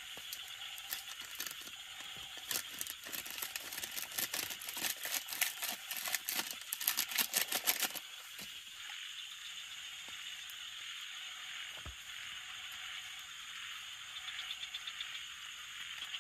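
A fast, irregular run of clicks and rattling for about eight seconds that grows louder and then stops abruptly, over a steady hiss.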